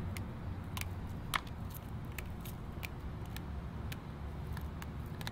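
Irregular light clicks and ticks of small glass and mirror chips being handled and sprinkled over trays of wet concrete topping, over a steady low rumble.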